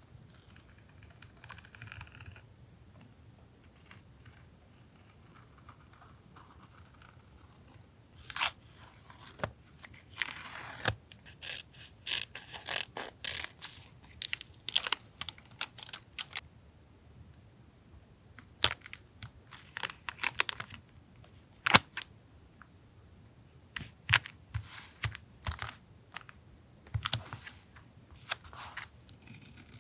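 Paper being handled for journal collage: irregular rustles, crinkles and light taps of paper cutouts and stickers, picking up about eight seconds in after a quieter stretch.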